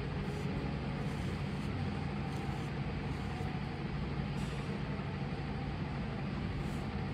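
A steady low mechanical hum and rumble, unchanging throughout.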